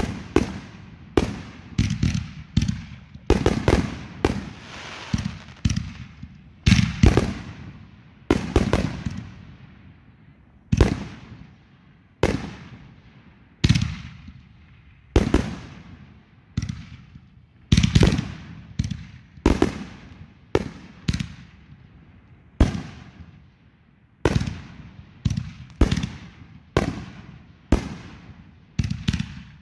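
Aerial fireworks going off in a steady string of sharp bangs, roughly one a second, each echoing briefly.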